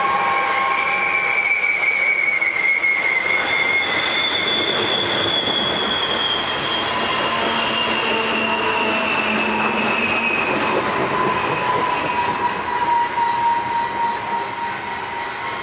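Loaded coal train's steel wheels and brakes squealing, several high tones sliding slowly down in pitch over the steady rumble of the rolling cars, fading near the end. The train is slowing, in the title's account going into emergency braking after breaking apart.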